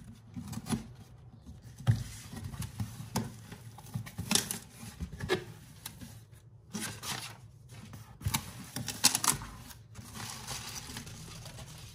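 Craft knife slitting the packing tape on a cardboard box, with short scraping cuts and sharp clicks, then the cardboard flaps being pulled open and rustling.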